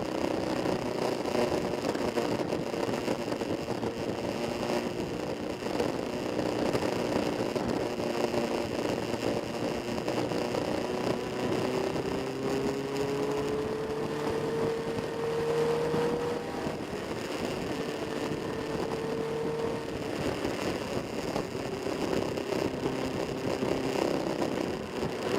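Motorcycle engines running steadily, with one engine's pitch rising slowly around the middle.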